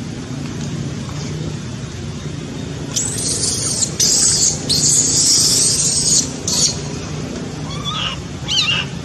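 Baby macaque splashing in shallow water and screaming in four loud, harsh, high-pitched bursts from about three seconds in, then giving a few short squealing cries that rise and fall in pitch near the end: the distress cries of an infant that has fallen into the water.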